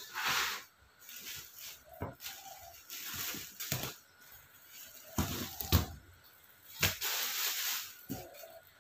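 Handling noises from a wire bird-cage frame being moved about: scattered knocks and clicks with short scraping rustles between them.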